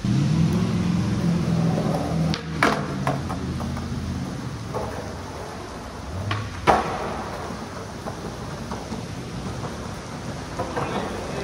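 Skateboard wheels rolling over concrete, a low rumble for the first four seconds or so, with sharp clacks of the board's tail and wheels striking the ground: two about two and a half seconds in and a louder one near seven seconds.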